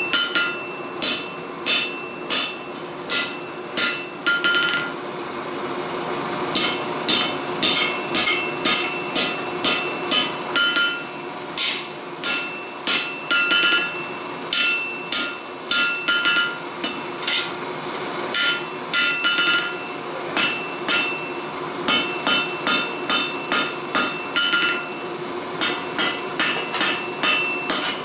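Hammer blows on hot steel over an anvil while forging a cutlass blade, roughly one or two strikes a second in runs with short pauses, each blow leaving a brief high ring from the anvil. A steady hum runs underneath.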